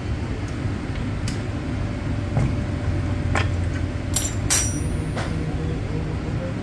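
A handful of sharp metal clinks and taps as an Allen key works the bolts of a Royal Enfield clutch cover and the cover is handled, over a steady low hum. The sharpest clink, with a short ringing, comes about four and a half seconds in.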